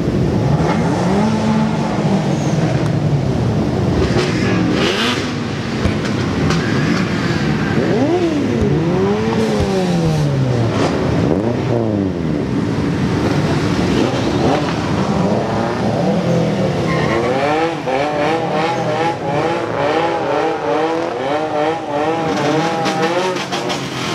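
Several car engines revving up and falling back again and again, with cars driving past. From about two-thirds of the way in, a higher wavering tone joins them.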